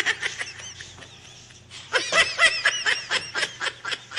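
A person laughing in quick, high-pitched bursts, about five a second, starting briefly and then again more strongly from about two seconds in.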